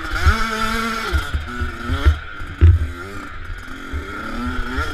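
Motocross bike engine revving up and down as it is ridden hard, its pitch rising, holding and dropping several times with throttle and gear changes, with wind buffeting the on-board microphone. A sharp thump about two and a half seconds in.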